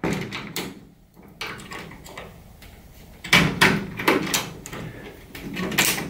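Metal clicks and rattles from a lock pick worked down the side of a euro cylinder lock in a metal security screen door, fishing for the cam to flick it up to the 12 o'clock position so the cylinder can come out. A few sharp clicks come early, and a cluster of rattling knocks comes about halfway through.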